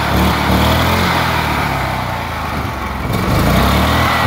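Honda GX340 11 hp single-cylinder four-stroke engine running. Its speed sags a little from about a second in and picks up again a little past three seconds in as the throttle lever is worked by hand.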